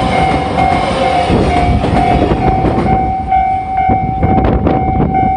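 A JR West 283 series 'Ocean Arrow' limited express train rumbling past at a level crossing, its wheels clicking over rail joints in the second half, while the crossing's warning bell sounds as a steady ringing tone.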